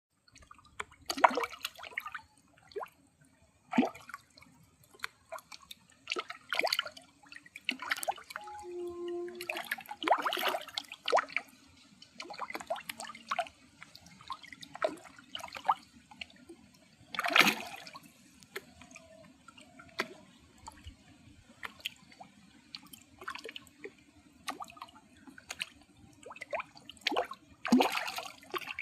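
Pond fish feeding at the water surface: irregular small splashes and gulping plops, a few seconds apart. A faint steady low hum runs underneath.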